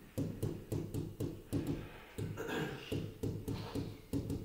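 Pen tapping and scratching on an interactive whiteboard screen while writing: a run of small sharp clicks, about three or four a second.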